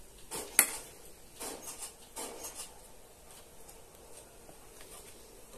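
Light handling noises: a sharp click about half a second in, then a few scattered rustles and soft taps.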